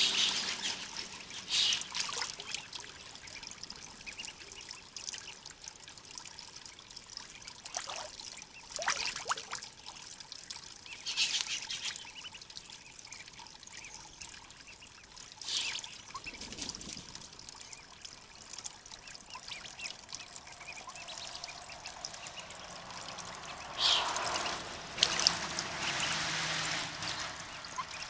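Mallard ducklings and their mother splashing and dabbling in shallow pond water: short bursts of splashing and trickling every few seconds over a faint steady water hiss, busiest near the end.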